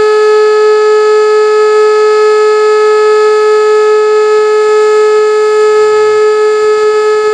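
Old World War II-era civil defence siren sounding the "Feueralarm" fire-alarm signal, holding one loud, steady tone at full pitch with strong overtones.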